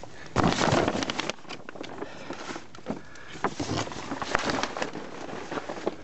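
Plastic tarp door crinkling and rustling as it is pulled open, loudest for about a second near the start, then scattered rustles and crackles of the plastic being handled.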